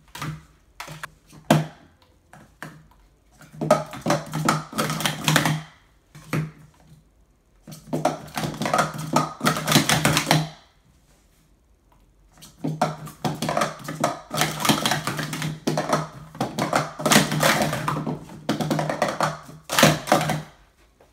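Speed Stacks PS2X plastic sport-stacking cups being stacked up and down at speed: rapid clattering of cups on cups and on the mat, in bursts of several seconds with short pauses between runs.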